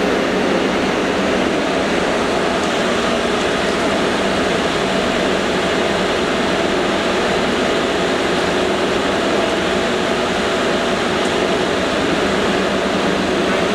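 1952 Bullard Cutmaster vertical turret lathe running, its 36-inch table and four-jaw chuck turning under power: a steady machine hum with several constant tones over a noisy wash.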